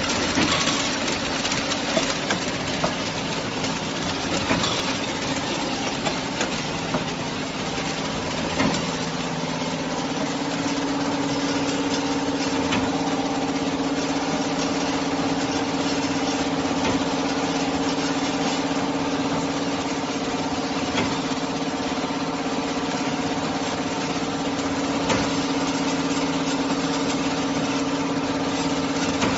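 Automatic drink straw packing machine running, a steady mechanical hum with a few sharp clicks scattered through it. About nine seconds in, a steadier tone sets in and holds.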